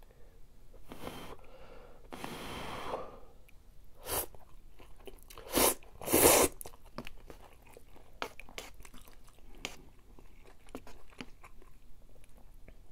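Eating Nissin Cup Noodle instant ramen: two breathy rushes in the first three seconds, then a few quick, loud slurps of noodles about four to six and a half seconds in, the last the loudest. Wet chewing with many small soft clicks follows.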